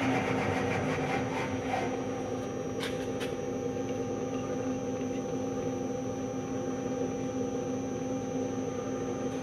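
Milling machine running with a steady hum made of several fixed tones. A louder machining noise fades out over the first second, and two faint clicks come about three seconds in.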